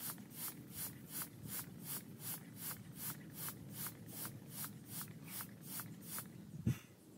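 Hand air pump worked up and down, about three strokes a second, each stroke a short rush of air, inflating an above-ground pool. The pumping stops about six seconds in, and a single thump follows.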